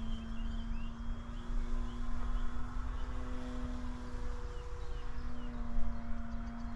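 Electric motor and propeller of a SebArt Katana S 50E aerobatic RC plane flying overhead: a steady drone whose pitch rises and falls slightly as the plane manoeuvres. Short bird chirps sound above it.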